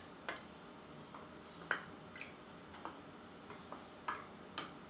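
Wooden spoon stirring sliced fruit and water in a glass jar: faint, irregular taps and clicks of wood against the glass.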